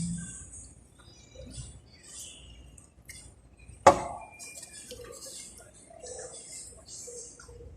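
Cutlery clinking against a dish during a meal, with one sharp, loud clink about four seconds in and small scattered clicks around it.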